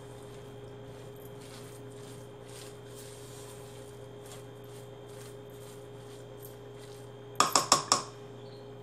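Hands kneading a rice-and-fish mixture in a stainless steel bowl, faint soft mixing strokes over a steady low hum. Near the end come about four quick, sharp clinks of the spatula knocking against the metal bowl.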